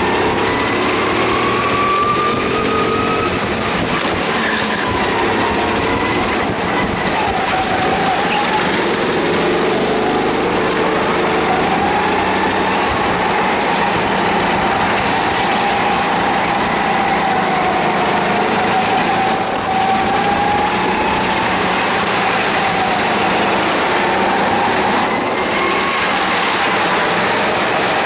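Go-kart engine running at speed, its pitch rising and falling steadily with the throttle through the corners.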